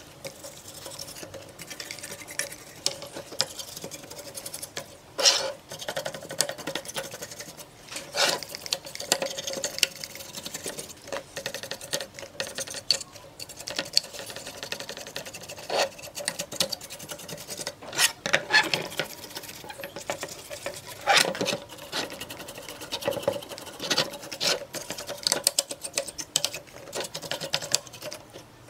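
Brush bristles scrubbing a dirty amplifier circuit board, a steady run of quick scratchy strokes over the board and its components, with louder scrapes every few seconds.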